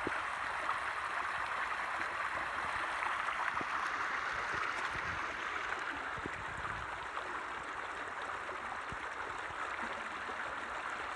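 Water rushing steadily through a breach broken open in a beaver dam, the backed-up pond draining down the creek channel.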